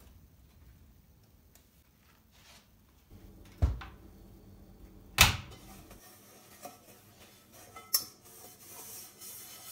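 Household objects being handled: three sharp clunks, a few seconds apart, the second the loudest, with lighter clicks and knocks between.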